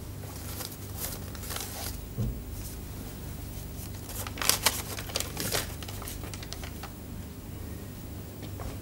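Cloth trousers rustling as their pockets are searched, then a folded paper slip crinkling as it is pulled out and unfolded, the loudest crinkles about halfway through. A soft thump about two seconds in, over a steady low hum.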